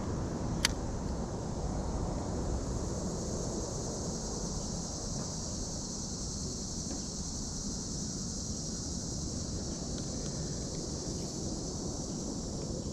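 Outdoor ambience: a steady low wind rumble on the microphone under a steady high hiss, with one sharp click about half a second in.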